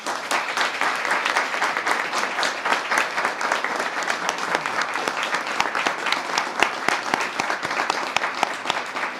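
An audience applauding steadily: many hands clapping together.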